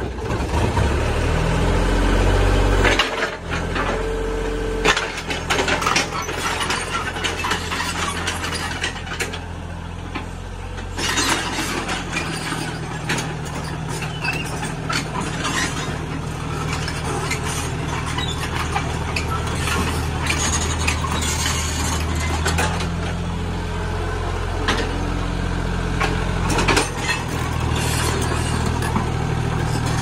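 Kobelco SK50UR excavator's diesel engine running under hydraulic load, its pitch stepping up and down several times as the boom and upper structure work. Scattered metal clanks and rattles come from the machine.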